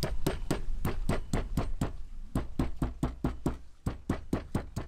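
Metal meat-tenderizing mallet beating a whole raw octopus on a cleaning table, to tenderize the meat: quick, even strikes at about four a second.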